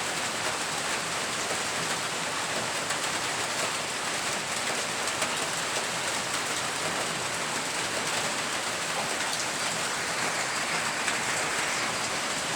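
Steady rain falling, an even hiss of rain on surfaces with no let-up.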